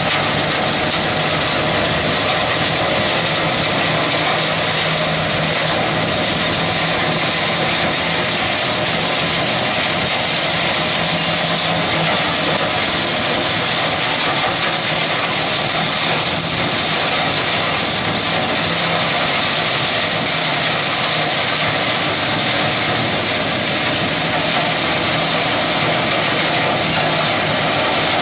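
Giant compact articulated loader's engine running steadily under load, while its hydraulic flail mower attachment spins and shreds tall grass and weeds. The result is an unbroken mix of low engine drone and a dense, high rushing whir.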